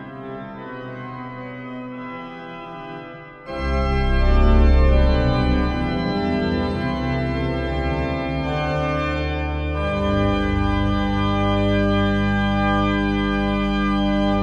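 Two-manual digital organ playing the closing bars of a chorale prelude. A softer passage gives way about three and a half seconds in to a louder, fuller registration with deep pedal bass. From about ten seconds in, a long final chord is held.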